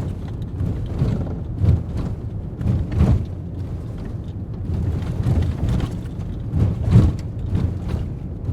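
Ford Raptor pickup truck: a low, uneven rumble broken by irregular knocks and thumps, the loudest about three seconds in and again near seven seconds.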